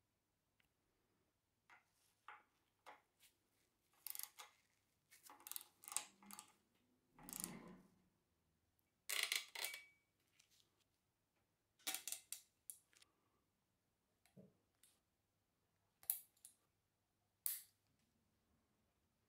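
Gloved hands handling a braided brake hose and its fittings on a bicycle frame: a scatter of short clicks, taps and rustles.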